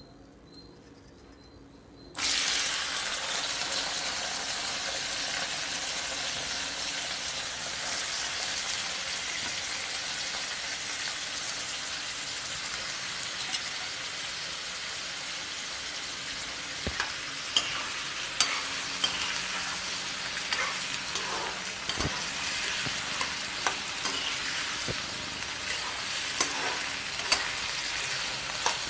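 Washed, cut potato pieces dropped into hot oil in a kadai, setting off a sudden loud sizzle about two seconds in that carries on steadily as they fry. From about halfway on, a metal perforated ladle clinks and scrapes against the pan as the potatoes are stirred.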